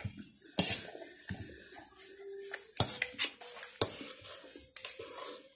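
Metal fork and spoon clinking and scraping against a plate while noodles are eaten, with several sharp clinks spread a second or so apart.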